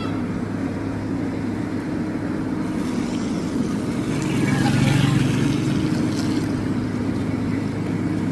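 Excavator's engine running steadily with a low, even hum, working harder for a moment about four to five seconds in.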